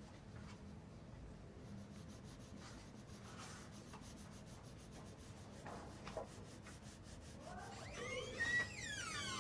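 Red colored pencil shading on paper: a faint, scratchy rubbing of quick back-and-forth strokes. Near the end come a few brief high gliding squeaks, louder than the shading.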